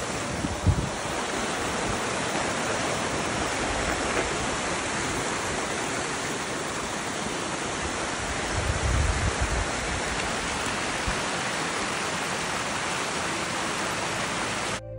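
Spring-fed creek rushing steadily over shallow rock steps and a small waterfall. A few low thuds on the microphone about a second in and again around nine seconds.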